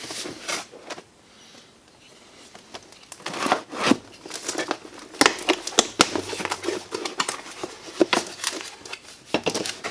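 A cardboard tool box being opened and its packaging handled: a brief lull, then irregular crinkling, rustling and tearing with scattered clicks and knocks.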